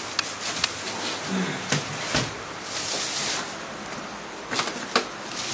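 Plastic storage containers being handled on a metal shelf: scattered light knocks and clicks, with some rustling of plastic.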